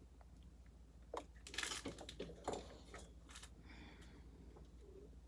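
A few faint, scattered clicks and a brief rustle as computer case parts and cables are handled, over a low steady hum.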